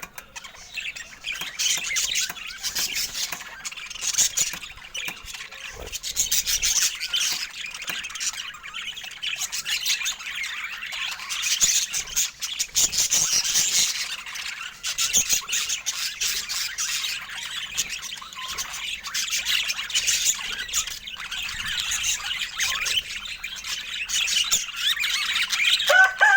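Budgerigars chattering: a busy, continuous stream of high chirps and squawky calls.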